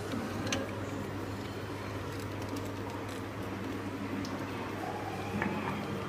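Quiet room tone: a steady low hum with a few faint, light clicks, about half a second in and again near the end.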